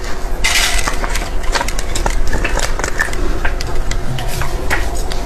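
Dense crackling made of many small clicks and short scratchy rustles: sugar sprinkles spilling and scattering across a wooden board as a sprinkle-covered cake is unmolded.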